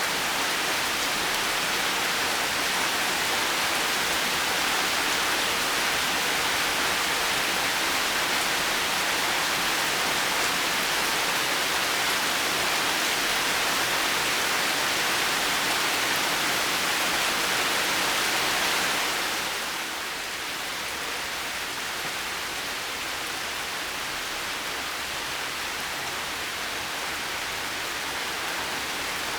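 Heavy rain falling in a steady, even hiss. About two-thirds of the way through it eases a little, becoming softer and duller, then carries on steadily.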